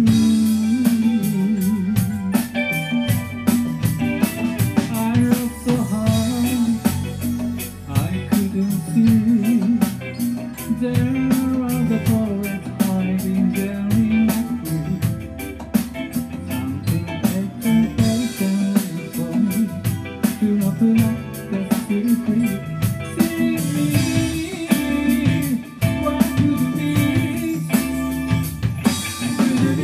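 A live rock band playing: electric guitar over bass guitar and a drum kit keeping a steady beat.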